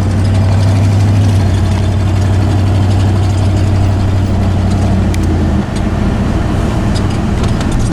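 Truck engine and road noise heard from inside the cab while driving, a steady low drone that eases off a little over halfway through.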